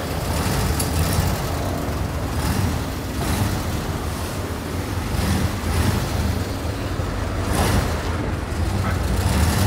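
Street traffic noise: a steady low rumble with cars passing on the road every second or two.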